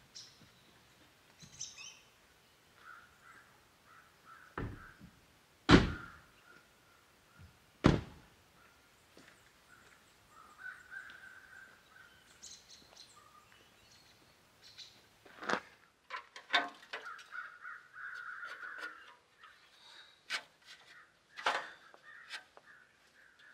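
Crows cawing, with a series of sharp thunks as the pickup truck's doors are shut; two loud ones come about six and eight seconds in.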